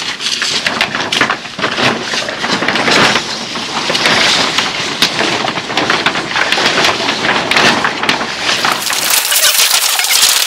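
Large black polythene damp-proof membrane (Visqueen) crackling and rustling as it is unfolded and shaken out by hand. Near the end the sound turns brighter and hissier.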